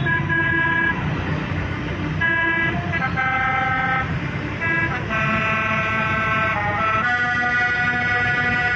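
Basuri-style 'telolet' melodic bus horn playing a tune: several held notes sounding together, changing pitch every half second to a second, over a low engine rumble.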